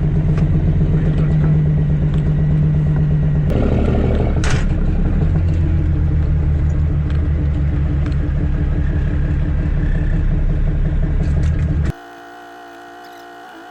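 Caterpillar C13 inline-six diesel of a Kenworth W900B dump truck running steadily under way. About three and a half seconds in the engine note drops lower, with a short clatter just after. Near the end the sound cuts off abruptly to a much quieter steady hum.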